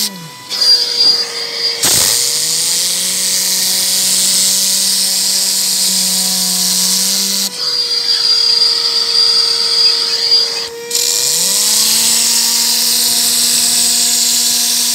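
Tornador Black Z-020 S compressed-air cleaning gun blowing through its cone nozzle: a loud hiss with a low buzzing tone from the whirling tube inside. The air stops about a second in and again after about seven and a half seconds, each time for a second or more, then starts up again, while a quieter steady hum continues underneath.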